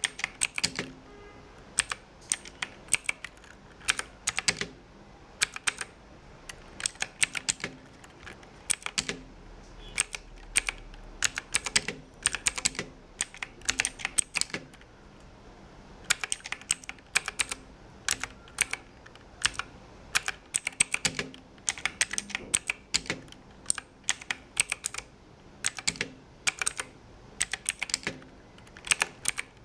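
Typing on a Bajeal K100 mechanical keyboard with clicky Outemu blue switches: sharp key clicks in quick runs, broken by short pauses.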